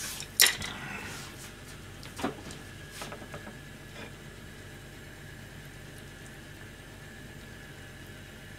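Chopsticks knocking and clicking on a plate and a steel counter: a sharp knock about half a second in, a lighter one a couple of seconds later, and a few faint ticks. After that only a steady low kitchen hum remains.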